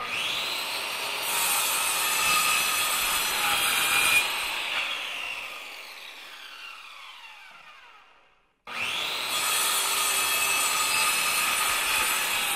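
Power saw cutting wood. About four seconds in it winds down with a falling whine and fades away. After a brief gap it starts again abruptly and runs steadily.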